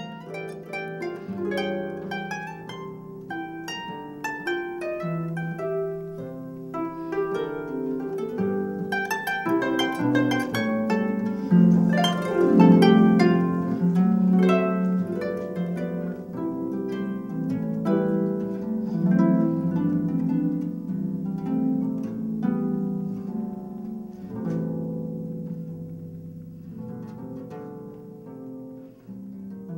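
Solo harp playing flowing runs and arpeggios of plucked notes that ring on, swelling to its loudest in the middle and softening toward the end.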